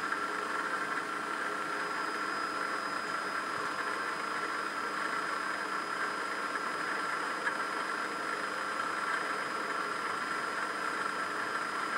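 Milling machine spindle running steadily with an end mill cutting an aluminium plate, a constant machine hum with a held high whine. The cutter is joining a row of drilled holes into one smooth slot.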